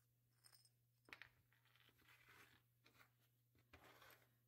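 Faint handling sounds of small toy-truck wheels, rubber tyres on metal hubs, being taken off an axle and set down on a wooden table: a few light knocks and soft rubbing and scraping.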